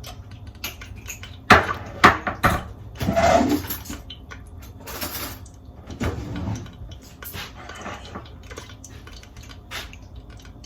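Cookware and utensils being handled: a few sharp metal knocks and clatters of pots and utensils about a second and a half in, followed by softer handling knocks, over a steady low hum.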